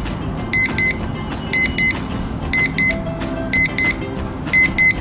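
Alarm clock sounding its alarm: pairs of short, high electronic beeps repeating about once a second, over background music.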